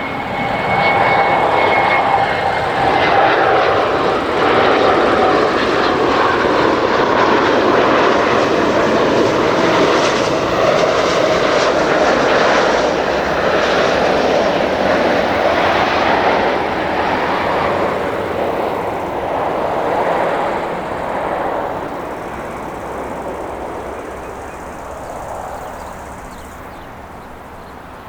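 A Bombardier Global 6000 business jet's twin Rolls-Royce BR710 turbofans as it lands past. The jet noise carries a high whine that sinks slightly in pitch as the jet passes; it swells in the first seconds, holds, then fades away over the last several seconds.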